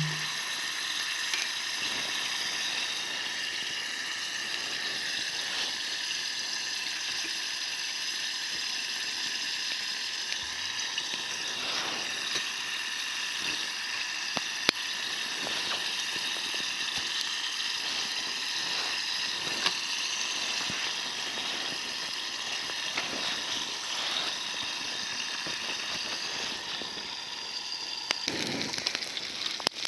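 Chicken wings and pork belly sizzling steadily over a wood campfire, with scattered sharp pops and crackles.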